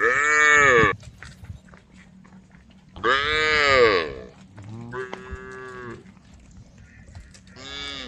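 Cows mooing: four calls, each rising then falling in pitch, the first right at the start, the loudest about three seconds in, a quieter, longer one around five seconds and a shorter one near the end.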